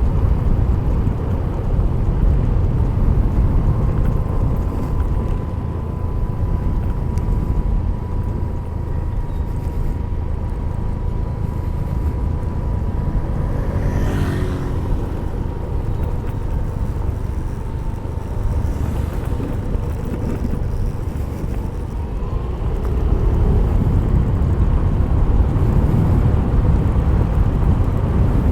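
Yamaha Mio i 125 scooter riding downhill, its single-cylinder engine under a steady rumble of wind and road noise on a helmet-mounted action camera. A thin steady whine runs for about ten seconds from a few seconds in, there is a brief sweeping sound about halfway through, and the noise grows louder near the end.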